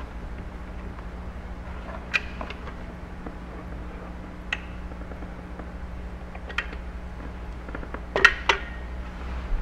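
Scattered sharp clicks and taps from handling a caulking gun and a flexible flashing panel being bent back, about three single ones spread out and a louder pair near the end, over a steady low hum.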